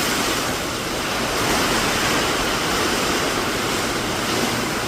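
Hurricane storm noise: a steady, even rush of water and wind with no breaks.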